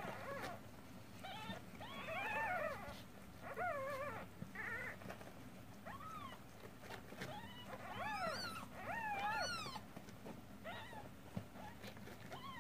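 Newborn kitten mewing repeatedly: about ten short, high-pitched mews, each rising then falling in pitch, as it crawls about looking for its mother's teat.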